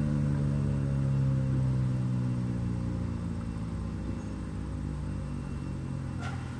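Federal Signal 2001-130 electromechanical outdoor warning siren winding down at the end of its test, its low hum slowly dropping in pitch and fading, over a low rumble.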